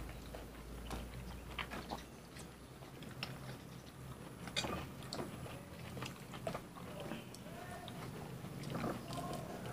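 Fresh oranges being peeled and eaten by hand: faint chewing, with scattered small clicks as the peel and segments are pulled apart.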